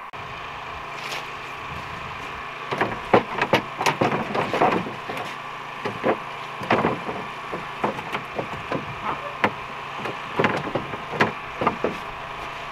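Irregular knocks, rattles and scrapes of a 1974 Snowbug Superbug snowmobile's hood being tugged and rocked while it stays caught on its hinges, over a steady hum.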